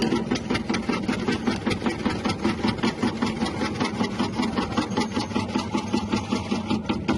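Electric cassava slicing machine running: a steady motor hum with a rapid, even chopping of about six strokes a second from its rotating blade.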